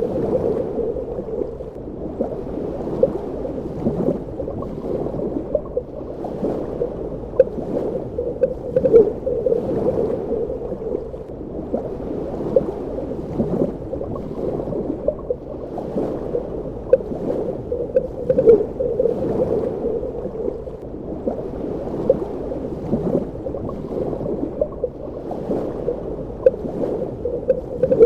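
Underwater ambience: a continuous muffled gurgling and bubbling, with frequent short irregular pops of bubbles.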